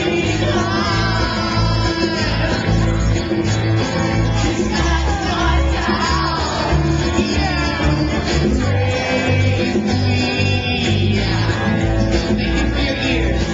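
Loud, amplified live music: a male singer singing into a microphone while strumming an acoustic guitar, over a steady, bass-heavy accompaniment.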